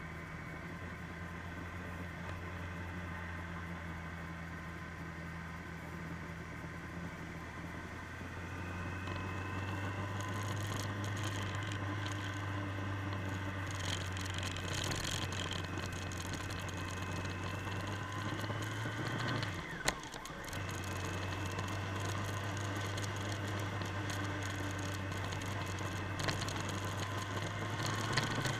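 Motorcycle engine running under way, heard from a camera mounted on the moving bike, with wind and road rush. The engine note rises about 8 s in as the bike speeds up, then drops briefly with a click about two-thirds through before picking up again.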